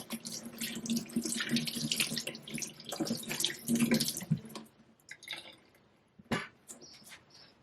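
Tap water running over a diamond sharpening stone as it is rinsed clean. The water stops about four and a half seconds in, followed by a few small knocks and clicks.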